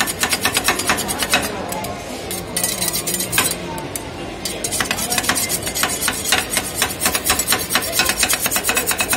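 Two metal spatulas rapidly chopping and tapping on the steel cold plate of a rolled ice cream machine, mashing fruit into the ice cream base. It sounds as a quick run of metallic clinks, several a second, easing off for a couple of seconds around the middle.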